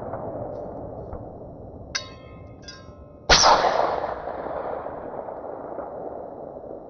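M1 Garand rifle firing a .30-06 round: a single loud shot about three seconds in, followed by a long echo that fades slowly. Before it, the echo of an earlier shot dies away, and a short metallic ring lasts about a second.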